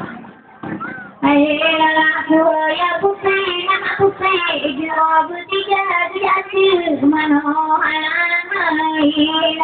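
A high female voice singing solo, a slow wavering melody of long held notes that slide between pitches, starting loudly about a second in.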